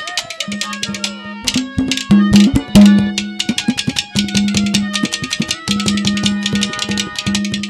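Instrumental interlude of Haryanvi ragni folk music: a fast hand-drum rhythm with rapid bright strokes over a held low note and a melody line.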